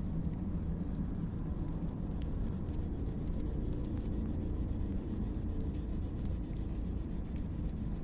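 Wood fire crackling, with scattered small pops and clicks over a steady low rumble.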